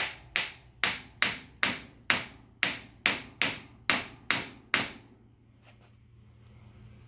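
Hammer blows, about a dozen in an even rhythm of two to three a second, with a faint metallic ring on each, driving the new wooden handle into the sledgehammer head; they stop about five seconds in, and one more blow lands at the very end.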